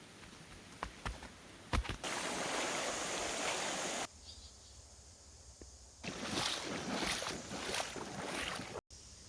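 Flowing creek water, loud in stretches that start and stop abruptly, with a few sharp knocks in the first two seconds.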